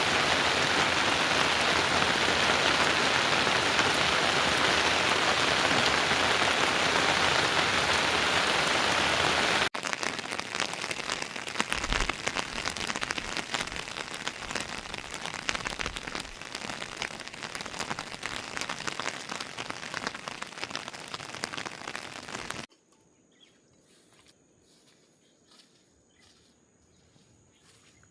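Heavy rain falling as a dense, steady hiss. About ten seconds in it changes suddenly to lighter rain with many separate drops pattering. Near the end it drops away abruptly to near silence with only faint scattered ticks.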